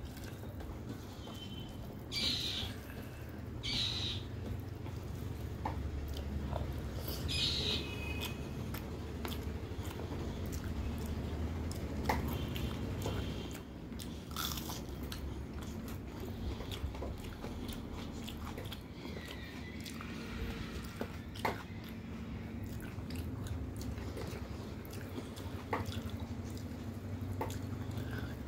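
Close-up chewing and mouth sounds of a person eating rice and fish curry by hand, with scattered soft clicks, lip smacks and fingers working rice on a metal plate, over a steady low hum.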